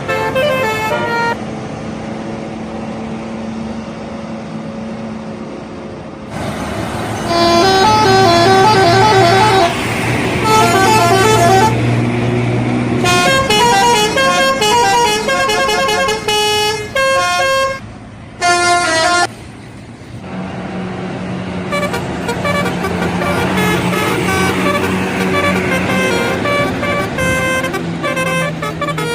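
Indonesian bus telolet horn playing quick runs of stepped musical notes in several bursts, from about six seconds in until about two-thirds of the way through, over the steady hum of a bus engine.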